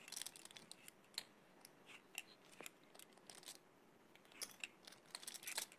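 Faint, scattered clicking of poker chips being handled, with a denser run of clicks near the end.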